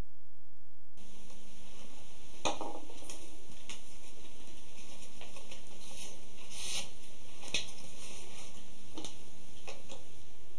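Steady hiss of room tone with scattered light clicks and rustles, about seven in all, as hands work with pine splints at a workbench.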